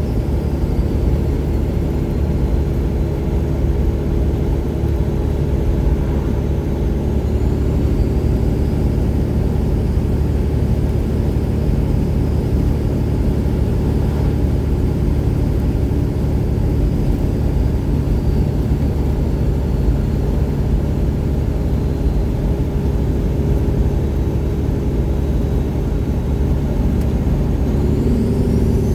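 1999 Peterbilt 379's Detroit Series 60 straight-six diesel running steadily through 7-inch straight pipes, with a faint turbo whistle above it that falls in pitch early on, rises about seven seconds in, and climbs again near the end.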